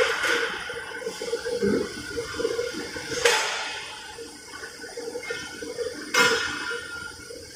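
Metal-shop machinery running with a steady hum, broken by three sudden hissing bursts about three seconds apart that each fade out over about a second.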